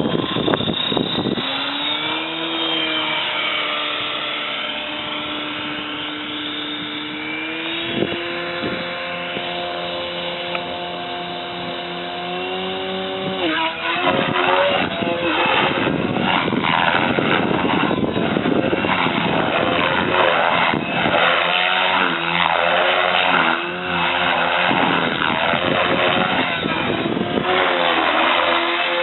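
Electric RC helicopter (Gaui Hurricane 425XF with a Scorpion HK3026-1400 brushless motor): a steady motor and rotor whine that rises about two seconds in and steps up in pitch about eight seconds in. From about fourteen seconds in it turns louder and rougher, its pitch going up and down.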